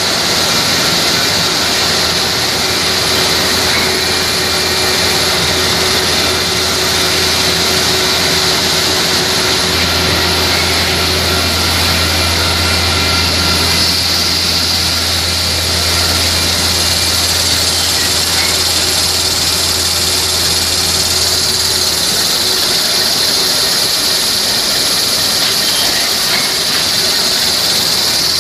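Toilet paper and kitchen towel converting line running: loud, steady machine noise with a high hiss and a low hum, the hum growing stronger for a stretch in the middle.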